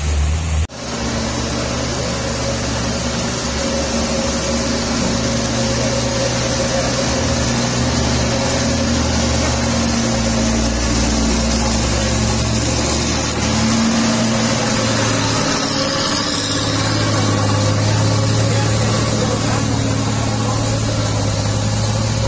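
Heavy goods trucks' diesel engines labouring steadily up a steep hairpin climb, a continuous low drone that grows stronger about two-thirds of the way through, over a steady hiss from the wet road.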